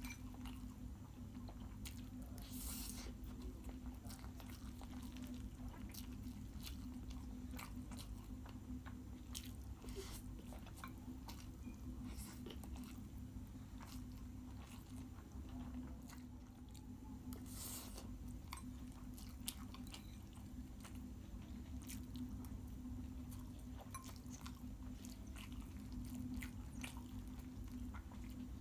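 Close-miked eating: wet chewing and small mouth clicks as a person eats Maggi noodles and chicken biryani, over a steady low hum.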